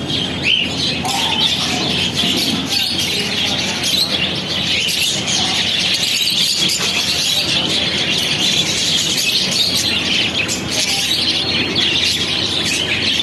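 Many small birds chirping and twittering all at once, a dense, steady chatter of overlapping high calls with no break.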